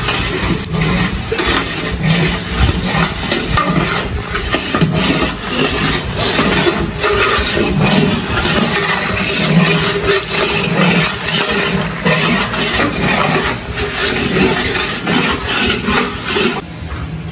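Long wooden paddle stirring a large aluminium cooking pot of liquid over a wood fire: continuous sloshing with irregular scrapes and knocks of the paddle against the pot. It drops away shortly before the end.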